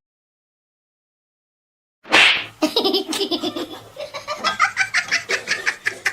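Silence, then about two seconds in a short hissing burst and a run of quick, breathy laughter that rises and fades in pulses.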